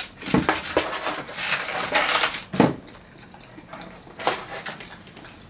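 Tableware and eating noises: a quick run of short clicks and clatters over the first three seconds, then a couple more near the end.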